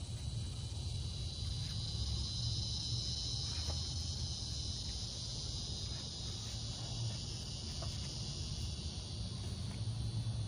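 A steady, shrill insect chorus of crickets over a low steady rumble, with a few faint clicks from a lug wrench turning the wheel's lug nuts.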